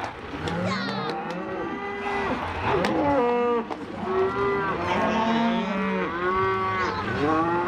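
A penned herd of cows and calves bawling, many calls overlapping one another with no break.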